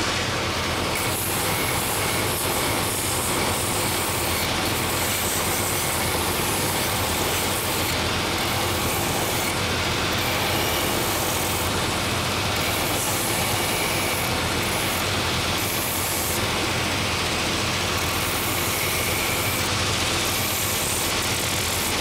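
Last-making belt sander running with a coarse 24-grit, 3-inch belt, grinding the heel seat of a wooden shoe last; the motor's steady drone carries throughout, and a rasping hiss rises and falls every second or two as the wood is pressed onto the belt and eased off.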